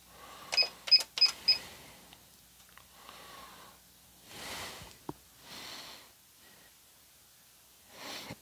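Four short electronic beeps in quick succession from the Singer Heavy Duty 6800C sewing machine's keypad as letter buttons are pressed. Later come a few soft breaths and a faint click.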